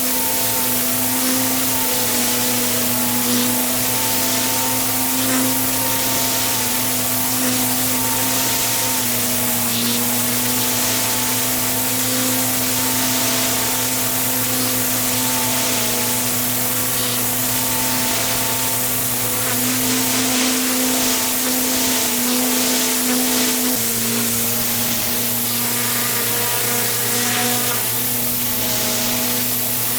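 Pressure washer running steadily with its high-pressure water jet hissing against block paving; the machine's tone shifts slightly in pitch a few times.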